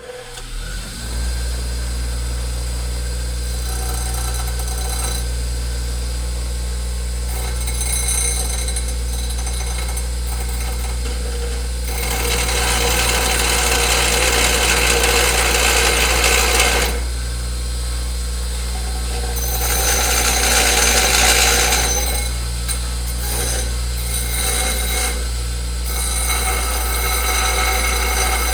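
Electric grinding wheel switched on and spinning up within about a second, then running with a steady low hum. Metal is pressed to the wheel several times, briefly at first and then in two longer, louder grinding spells a little before and after the middle.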